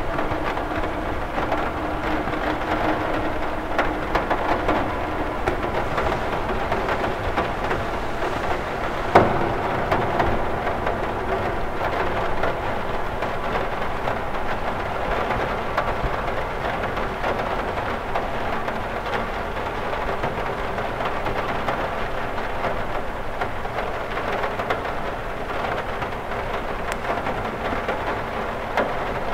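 Steady rain on a cathedral window, dense drops ticking against the glass, with one louder hit about nine seconds in.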